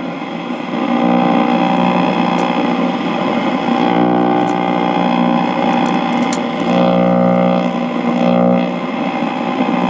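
1940 Philco 40-155 tube radio's speaker giving a steady buzzing drone with hiss while it is tuned between AM stations.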